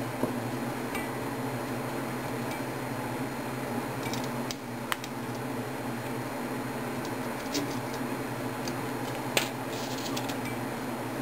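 A few small, sharp metallic clicks and clinks of steel parts being handled and pressed in an AK rifle's receiver while its pin holes are lined up, over a steady low hum. The sharpest click comes about nine seconds in.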